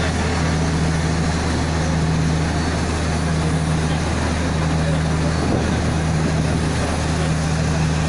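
A steady low mechanical hum, with a higher tone that drops out and returns every second or two, under a constant noisy haze.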